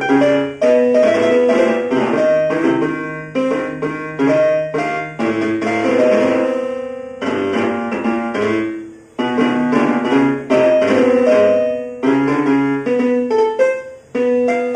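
Casio SA-77 mini keyboard in a piano voice, played by a small child who presses clusters of keys at once at irregular moments. Each jumble of notes sounds and fades before the next, with no tune or steady beat, and there is a short lull near the end.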